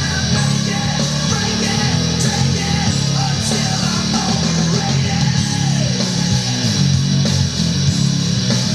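Loud nu-metal / rap-rock track with heavy distorted electric guitar and bass playing continuously.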